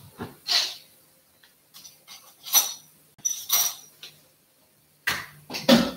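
Kitchen clatter of dishes and metal utensils being handled: about half a dozen irregular clinks and knocks, a couple of them ringing briefly.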